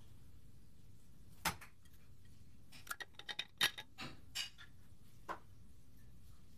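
Light clicks and clinks of a glass water bottle and its stainless steel lid being handled. A single click comes about a second and a half in, then a quick run of clicks about three seconds in as the lid is unscrewed from the glass, and two more single clicks near the end.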